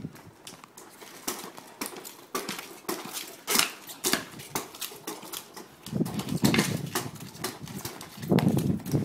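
Shoes tapping and scuffing on a hard floor during a dance: irregular sharp clicks, with heavier, fuller steps from about six seconds in and again near the end.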